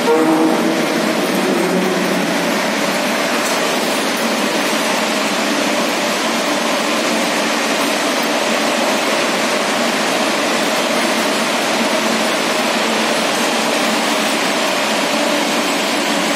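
Cell phone circuit-board dismantling machine and its fume-extraction blower running, a loud, steady whirring hiss with a faint hum.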